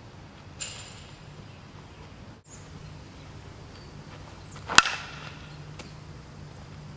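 Softball bat striking a tossed softball: one sharp, loud, ringing crack about five seconds in. A fainter sharp crack with a short high ring comes just over half a second in.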